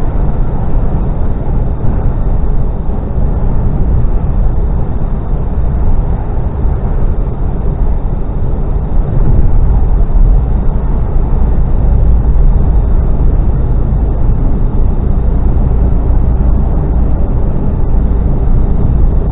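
Steady low drone inside a Mercedes-Benz Actros HGV cab at motorway cruising speed: diesel engine and road noise running evenly, with no change through the stretch.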